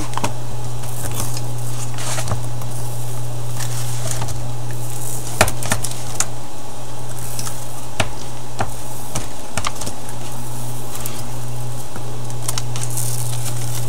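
Small hand tools scraping and clicking against a tablet's frame while leftover screen adhesive is cleared, with scattered single clicks over a steady low hum.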